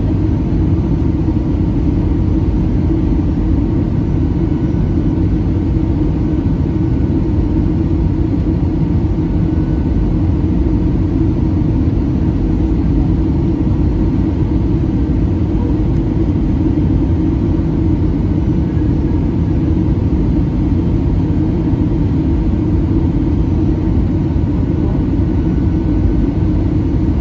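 Steady low rumble of an Airbus A320's engines and airflow heard from inside the passenger cabin on final approach.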